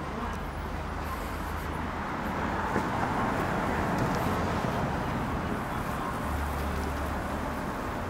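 Steady road traffic noise, an even rumble and hiss that swells a little about three seconds in.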